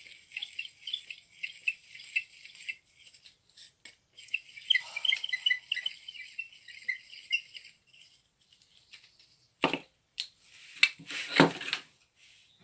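Old hand-cranked drill being unscrewed by hand, its chuck and gears giving a rapid run of light ticking that stops and starts again. Near the end come a few sharp knocks and rubs of wood and tools being handled, the loudest about a second before the end.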